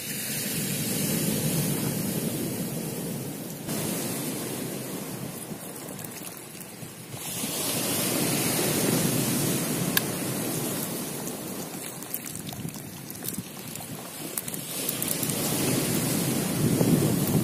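Sea surf washing on a pebble beach, a steady hiss that swells and falls over several seconds, with abrupt jumps in level where the recording cuts.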